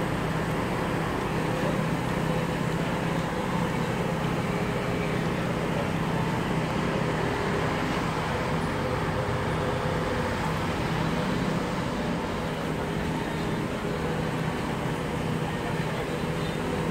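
Steady workshop background noise: a constant low hum under an even hiss, with no distinct knocks or tool sounds.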